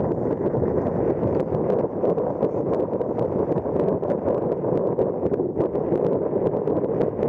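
Steady rushing noise of wind and water on a gusty river, with many small splashes or ticks scattered through it.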